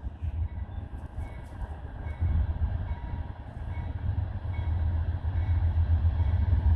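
Freight train's diesel locomotives rumbling deep and low, growing steadily louder as the train approaches.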